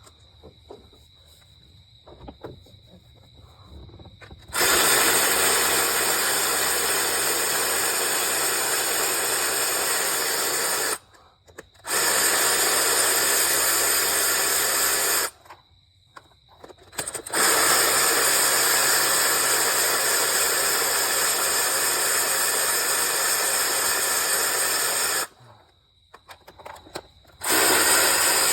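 Shop compressed air hissing in four long, steady bursts of several seconds each, separated by short pauses, while spark plugs and coil packs are being removed from a Hemi V8.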